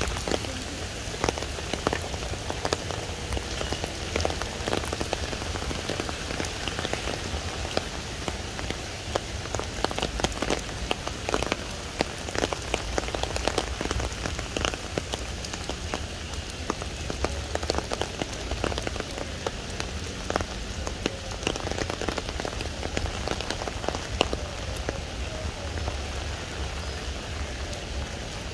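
Steady rain falling on wet paved ground: an even hiss with a dense patter of individual drops.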